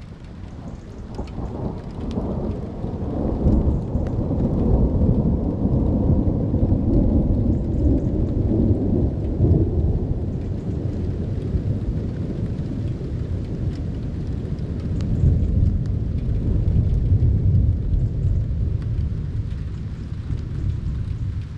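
A long roll of thunder from a thunderstorm: a deep rumble that builds over the first couple of seconds, swells twice and fades near the end. Light rain patters throughout.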